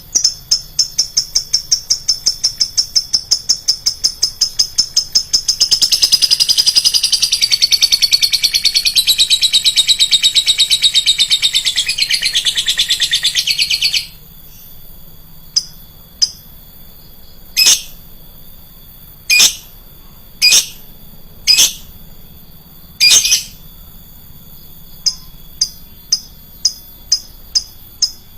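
Lovebird calling shrilly: a fast run of sharp chirps, then about eight seconds of loud, dense chattering, then a few single chirps a second or two apart and another quick run near the end.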